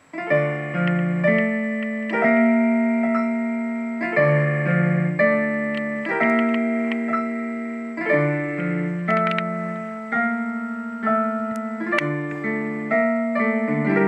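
Piano tune in a MIDI piano voice, played by an OLED pushbutton demo box through its built-in speakers. It starts suddenly, with chords and melody notes struck about once a second, each ringing on and fading.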